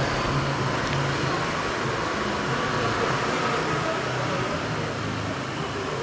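Steady city street traffic noise, with a vehicle engine running nearby as a constant low hum.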